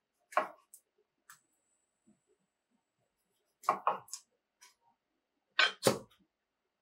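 A few sharp clicks and knocks: one near the start, then two quick double knocks a little past halfway and near the end.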